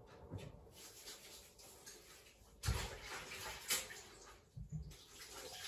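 Water running faintly from a tap as hands are washed, with a few dull knocks, and the running getting steadier near the end.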